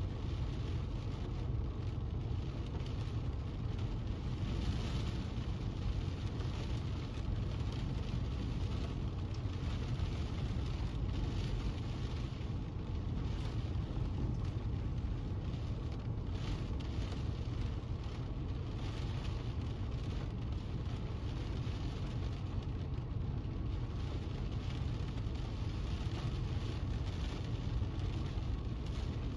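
Steady low rumble of a car, with a fainter hiss and light patter of rain over it.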